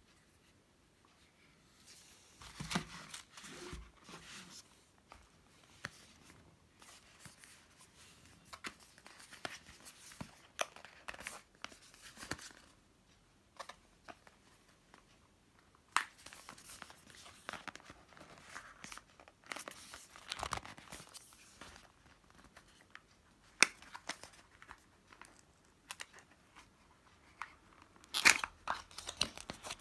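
Packaging being handled: irregular rustling, crinkling and tearing of paper and plastic, with a few sharp clicks.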